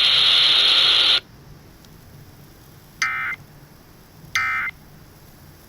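Emergency Alert System end-of-message data bursts: three short, identical screechy digital tone bursts, each about a third of a second with a second's gap between them, marking the end of the warning broadcast. They are preceded by about a second of loud hiss.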